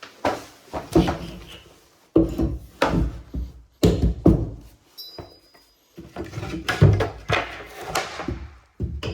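Irregular knocks and thuds on wood, about a dozen of them, some in quick clusters, with a brief clatter between.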